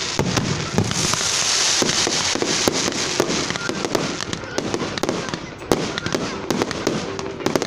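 Fireworks going off: an irregular string of sharp cracks and bangs, several a second, over a crackling background.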